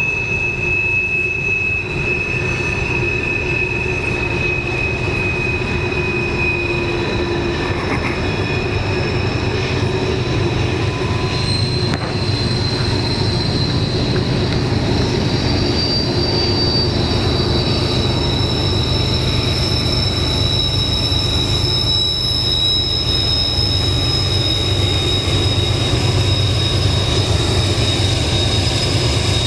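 Freight train's steel wheels squealing as a string of coal hopper cars rolls by on a tight curve. Several steady, high squealing tones that drift slowly in pitch sit over a continuous low rolling rumble, which grows slightly louder near the end. The squeal is wheel flanges grinding against the rail on the sharp curve.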